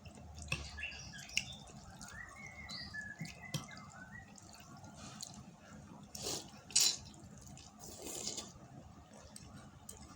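Close-up wet eating sounds of someone eating chicken noodles: scattered mouth clicks and smacks, with a few louder noisy slurps around six to eight seconds in.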